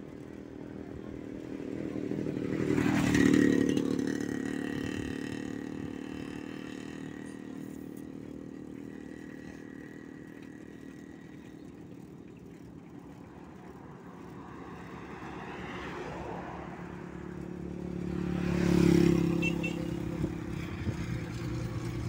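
Road traffic heard from a moving vehicle: a steady engine and road hum, with two vehicles passing close by, the first about three seconds in and the second near the end, each swelling up loud and fading away.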